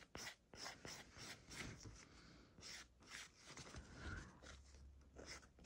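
A 150-grit hand nail file rasping back and forth over a gel nail extension in faint, short strokes, about three a second, while the nail is shaped.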